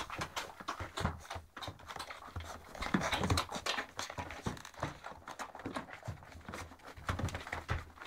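Fifteen-day-old Great Dane puppies making small noises and moving about: a dense, irregular run of soft clicks and rustles, a little louder about three seconds in.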